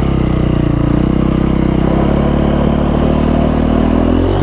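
KTM 530 EXC single-cylinder four-stroke dirt-bike engine running at a steady pitch, dipping slightly near the end.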